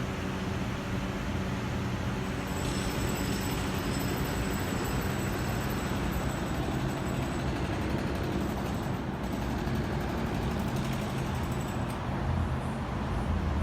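A motor vehicle's engine runs steadily over a wash of city street noise. A faint high whine joins about three seconds in and stops near the end.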